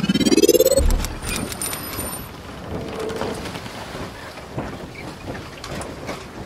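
Logo-intro sound effect: a pitched swoosh that rises steeply and ends in a low boom about a second in. It is followed by faint high tinkling and then a crackling hiss with scattered clicks.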